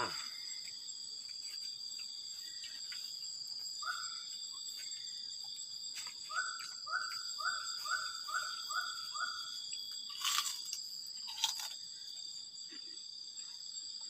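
Forest insects, crickets among them, trilling steadily at dusk. In the middle an unidentified animal calls a short rising note about seven times, about two a second. Two short sharp crunch-like noises follow near the end.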